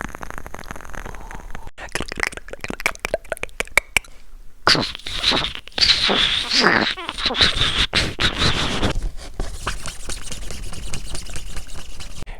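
Improvised foley sound effect: a dense run of rapid clicks and scrapes, with swooping squeaky glides in pitch through the middle.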